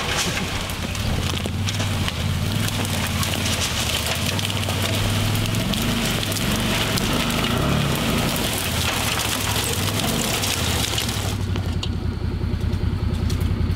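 Side-by-side utility vehicle's engine running as it pushes in through thick brush, its pitch rising and falling a little, with a steady rustle and scrape of branches and leaves. About eleven and a half seconds in the rustling stops and the engine keeps idling.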